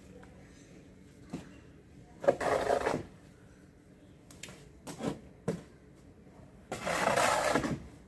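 A shovel scraping over a cement floor as it scoops up wet buffalo dung, two longer scrapes, with a few short sharp knocks in between as loads are tossed into a steel wheelbarrow.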